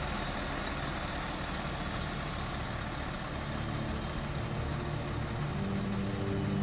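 Truck-mounted mobile crane's engine running steadily.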